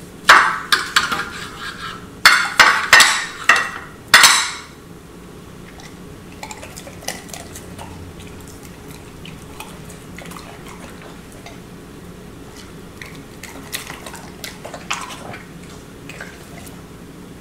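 Knife and fork cutting raw steak on a plate, the blade scraping and clinking against the plate in a run of loud strokes over the first four seconds or so. After that, only soft small clicks and smacks while a pit bull licks and chews bits of raw steak offered on the fork.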